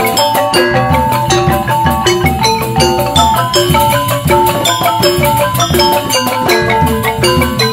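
Balinese joged bumbung gamelan playing: bamboo xylophones (grantang) in fast, interlocking struck-note patterns over kendang drum strokes, at a steady lively pace.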